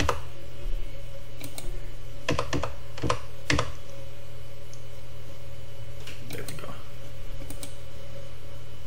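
Keystrokes on a computer keyboard, tapped a few at a time with pauses, as digits of a long parcel number are deleted and retyped. There is a cluster in the first four seconds and a few more taps a little past halfway. A steady low hum runs underneath.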